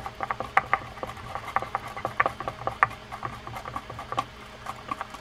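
Screwdriver driving a small screw through a Penn Peer 209 reel's side plate into a crossbar: a run of light, irregular metallic clicks and scrapes, several a second.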